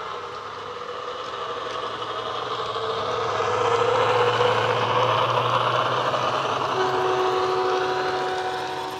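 Bachmann OO-gauge Class 70 model's DCC sound decoder playing a Class 70 diesel engine sound through its small speakers, getting louder as the locomotive passes close by and easing off as the container wagons follow.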